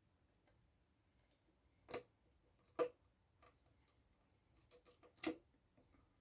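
Faint, irregular clicks and taps of small repair tools and tiny screws against an iPhone 6s's parts during reassembly. There are a handful, unevenly spaced, and the sharpest comes about three seconds in.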